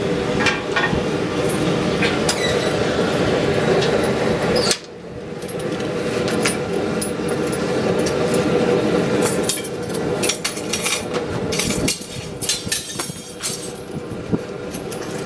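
Steady rush of a forge running, then near the end a quick run of hammer blows and clinks on a red-hot steel frying-pan blank held with tongs on a stump.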